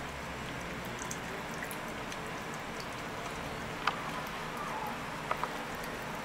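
A thin stream of tap water running into a washbasin, a steady trickle, with a few sharp drip-like ticks about four seconds in and twice more near the end.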